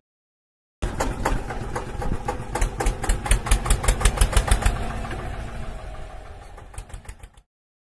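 A tractor-style diesel engine comes in abruptly and runs with an even putter, about four knocks a second at its loudest. It then fades away and cuts off suddenly.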